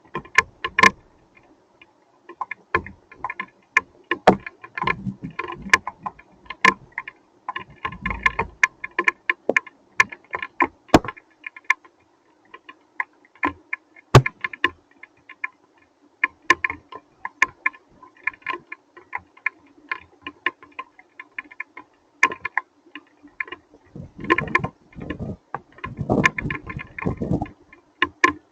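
Hailstones and rain pelting a surface: irregular sharp ticks and knocks, several a second, over a steady patter, with heavier rumbling spells near the start and near the end.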